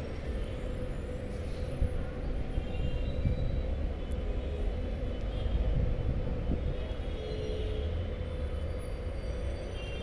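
Steady low rumble of distant city traffic, with a faint steady hum over it.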